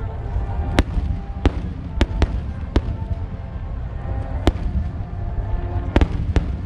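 Aerial fireworks bursting: about eight sharp bangs at irregular intervals, two of them close together near the end, over a continuous low rumble from the display.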